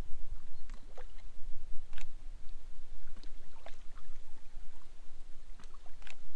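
Wind on the microphone as a steady low rumble, with a scattering of short, high chirps over it.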